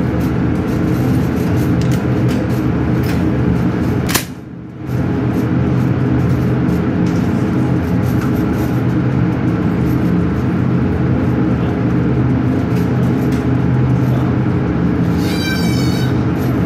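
Steady loud drone of an indoor shooting range's ventilation fans. About four seconds in there is one sharp crack, after which the sound drops out for under a second, and near the end there is a short rising chirp.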